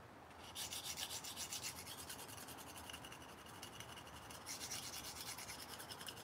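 Steel knife blade scraped in quick, short strokes on an extremely coarse sharpening stone, grinding metal away to rebuild a tip that was rounded over.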